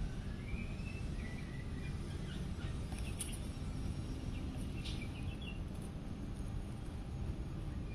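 Outdoor garden ambience: a steady low rumble, with faint high chirps in the first second or two and a few light ticks about three and five seconds in.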